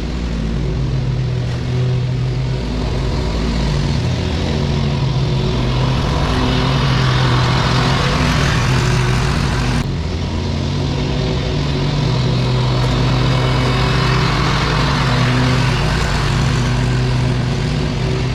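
Lawn mower engine running steadily under load, with a short break about ten seconds in.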